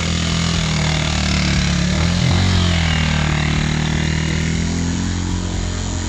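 Motorcycle engine running steadily, its pitch dipping and climbing back about two seconds in.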